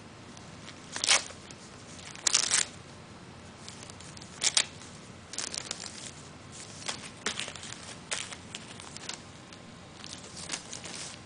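A young cat biting and tearing at Christmas wrapping paper: the paper crinkles and rips in short, sharp bursts every second or so, the loudest about a second in and around two and a half seconds in.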